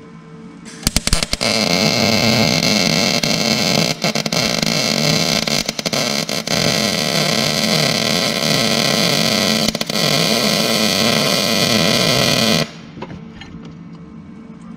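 Electric arc welding: the arc strikes with a few sputters about a second in, then crackles and hisses steadily with a few brief breaks, and cuts off suddenly about two seconds before the end.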